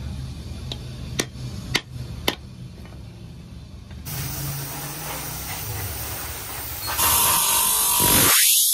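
A few sharp knocks as an axe head is worked on its handle, then a steady hiss from about four seconds in that turns much louder near the end as an axe handle is pressed against a spinning bench grinder disc.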